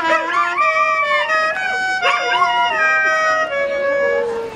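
A mongrel dog howling along to a clarinet tune: the clarinet plays steady, stepping notes while the dog's wavering howls slide up and down over them, rising again about two seconds in.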